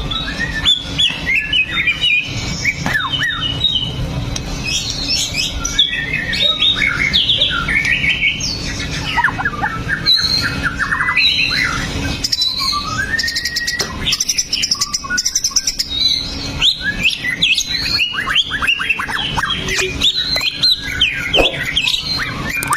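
White-rumped shama (murai batu) singing a fast, varied song of whistles, chirps and trills with hardly a pause, over a steady low hum.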